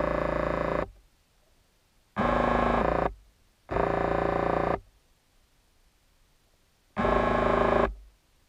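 The bait boat's electric motors whining in four short bursts about a second each, with quiet gaps between, heard through the underwater camera housing; each burst starts abruptly and the last one winds down.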